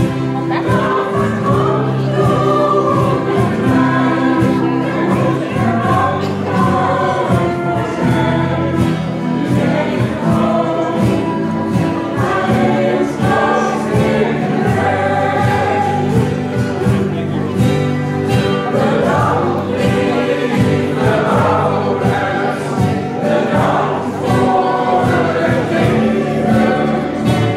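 Indo choir singing a song in chorus, backed by a small band of guitars, steel guitar, bass guitar and percussion keeping a steady beat.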